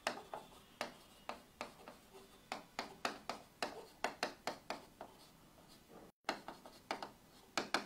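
Marker pen writing on a whiteboard: a quick, irregular series of short strokes and taps, several a second, as letters are written.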